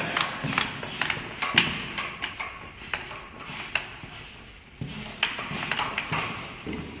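A long metal rod rammed and scraped inside a Suzuki Intruder M800's muffler, gutting its internal baffles: irregular metallic knocks and clatters with scraping between them.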